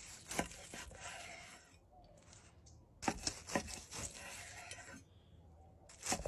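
Chef's knife slicing through grilled picanha on a wooden cutting board: soft sawing strokes of the blade with a few light clicks of the edge against the board. The cutting comes in two runs, the second starting about three seconds in.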